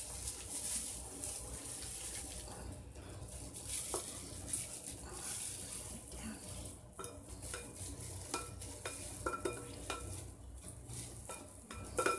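A plastic scoop digging and scraping potting soil in a metal bucket and pouring it into a glass fishbowl: irregular scraping and rustling of soil with scattered light clicks.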